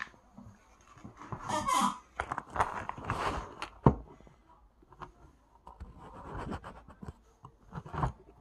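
Irregular scraping and rubbing strokes, with one sharp knock about four seconds in.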